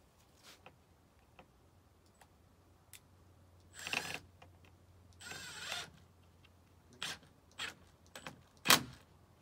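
Handling noises from the skirting trim along the bottom of the house. There is a short scrape about four seconds in and a longer rasp a second later, then a few short clicks and knocks, the sharpest near the end.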